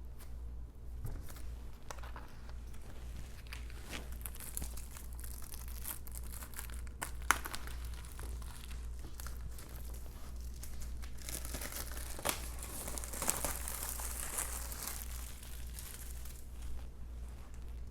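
Plastic wrapping on a MacBook Pro box being torn and crinkled off, in spells, with a few sharp clicks and knocks from handling the box, over a steady low hum.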